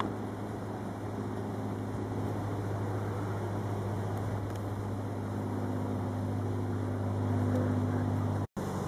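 A steady low mechanical hum over a constant rushing noise, cutting out for an instant near the end.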